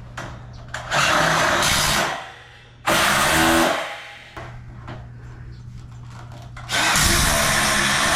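Power drill running in three bursts: about a second, then a shorter one, then a longer run of over two seconds near the end.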